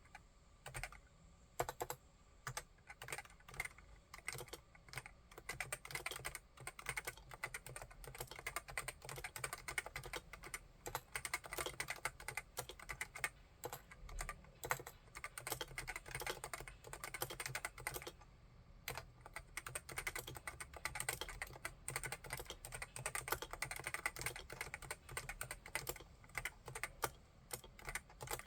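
Typing on a Realforce AEAX01 RGB keyboard with Topre electrostatic capacitive switches. Scattered key presses at first, then steady fast typing, with a brief pause about two-thirds of the way through.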